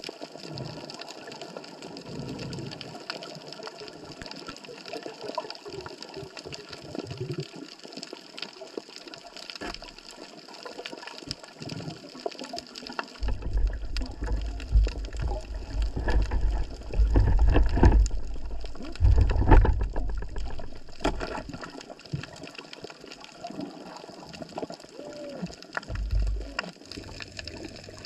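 Water sloshing and splashing as a fish trap is pushed down under the water. From about halfway through there is heavy low rumbling, loudest a little past the middle, and one more short rumble near the end.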